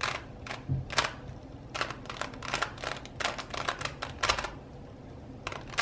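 LanLan Diamond, a plastic 3x3 shape-mod twisty puzzle, clacking as its layers are turned in quick runs of moves. The clicks come in irregular clusters, with a short pause about four and a half seconds in before a few more turns.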